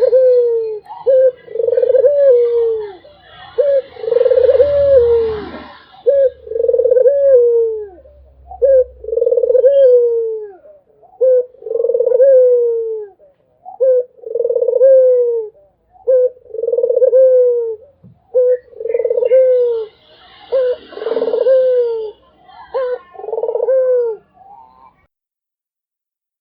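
Barbary dove (puter) cooing over and over, a string of short falling coos about one a second. The calls stop near the end.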